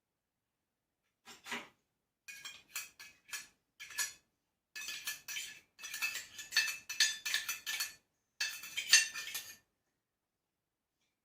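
A spoon scraping and clinking against a bowl in a run of short bursts over several seconds, the bowl ringing faintly with the strokes, loudest near the end.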